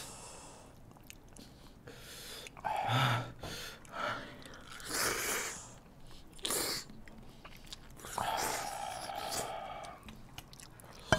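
Spicy instant noodles being slurped and chewed, in several separate short slurps and mouthfuls.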